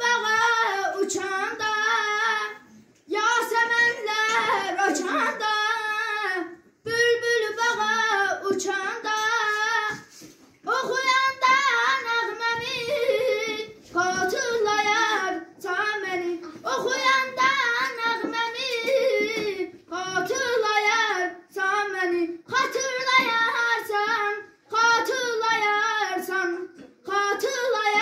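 A boy singing solo and unaccompanied, in phrases of a few seconds with short breaks for breath between them. Held notes waver in quick ornaments.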